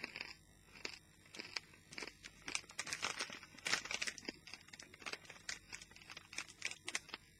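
A person crunching and chewing hard, crispy pork scratchings: a steady run of irregular sharp crunches.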